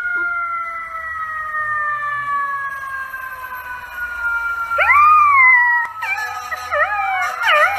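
A dog howling: one long, slowly falling howl, then a rising-and-falling howl about five seconds in, followed by quick wavering, warbling howls near the end.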